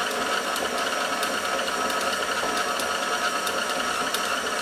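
KitchenAid stand mixer's motor running steadily on its lowest speed (speed 1), the paddle attachment turning through crumbly pasta dough as it comes together.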